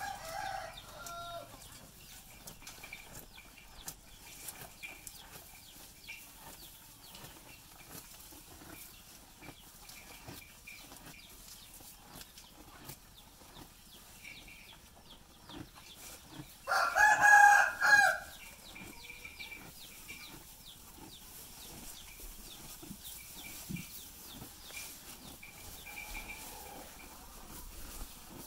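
A rooster crowing once, loudly, a little past the middle, one call of about a second and a half. The rest is a low background of faint clicks and rustling.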